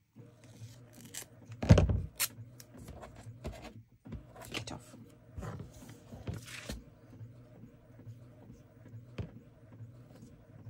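Hands handling a paper page and masking tape on a cutting mat: scattered rustles, taps and light knocks, the loudest knock just under two seconds in, over a faint low steady hum.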